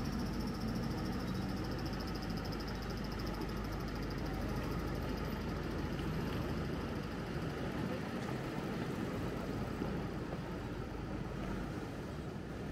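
Steady city street noise with a vehicle engine running.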